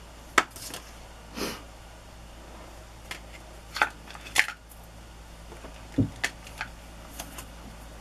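Hand-stamping with rubber stamps and a clear acrylic stamp block, handled on the craft table, ink pads and paper. It makes a scattered string of sharp clicks and taps, a short rustle about a second and a half in, and a duller thump about six seconds in.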